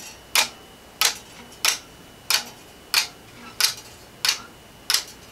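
Spring-driven, 3D-printed Swiss lever escapement ticking steadily, about one and a half sharp ticks a second. The beat is too slow for a watch.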